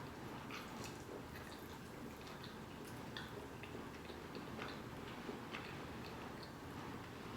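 Faint, irregular soft clicks and crackles of flaky baklava being chewed close to the microphone.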